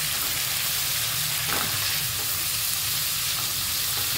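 Chopped vegetables sizzling steadily in a hot pan as a wooden spatula stirs and tosses them, with a light knock of the spatula about one and a half seconds in.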